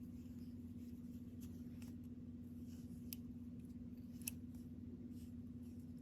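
Faint handling clicks of a metal latch hook working yarn through a double crochet stitch: a few scattered light ticks, the clearest about four seconds in, over a steady low hum.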